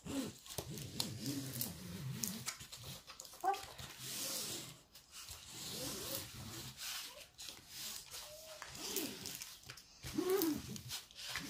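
Paper rustling and rubbing as the protective sheet over a diamond-painting canvas is pressed and smoothed flat with a small plastic tool. Several short rising-and-falling whining calls sound in the background throughout.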